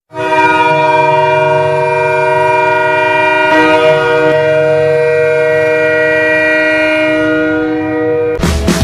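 Hockey arena goal horn: a multi-tone air horn sounding one long held chord for about eight seconds. Loud rock music cuts in near the end, as a goal song.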